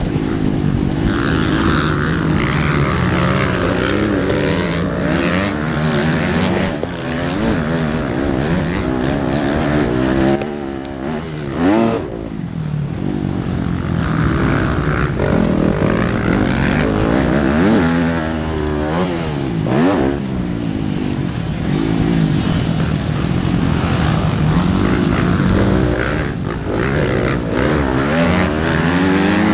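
Motocross bike engine revving hard, its pitch rising and falling every few seconds as the throttle is worked through the gears and corners. The engine drops off briefly around ten to twelve seconds in, then winds up again.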